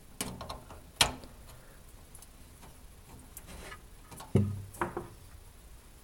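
Sharp plastic clicks and knocks of an RJ45 ethernet plug, its broken latch hook replaced by masking tape, being pushed into a computer's network port. The sharpest click comes about a second in, a few fainter ticks follow, and two duller thumps come near the end.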